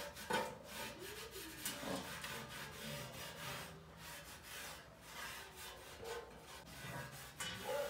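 Cloth rubbing over the ridged back of a porcelain tile panel in repeated wiping strokes, wiping the cutting dust off with 70% alcohol to prepare the surface for gluing.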